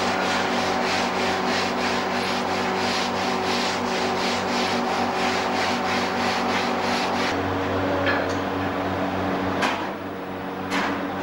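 Hands rubbing and smoothing long sand cores for cast-iron pipes, a rhythmic scraping at about three or four strokes a second, over a steady machine hum. The rubbing stops about seven seconds in, and a couple of sharp knocks follow near the end.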